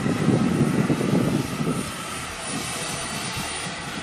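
Radio-controlled scale model helicopter flying overhead, its engine and rotor running steadily, with a gusty low rumble over it that eases after about a second and a half.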